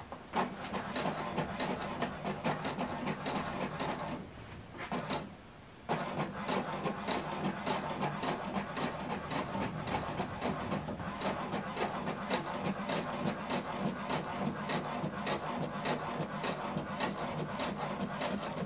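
HP DeskJet 2820e inkjet printer printing a page: the paper feed and the print-head carriage run with a rapid clicking rasp, printing the second side of a manually duplexed sheet. The noise drops away for about two seconds around four seconds in, then resumes steadily.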